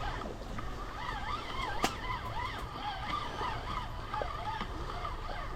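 Birds chirping and warbling over a steady low rumble of wind or river, with one sharp click about two seconds in.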